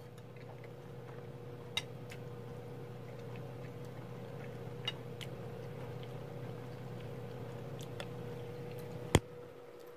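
Steady electrical hum in a quiet room, with a few light clicks of a utensil against a bowl during eating and one sharper, louder click about nine seconds in.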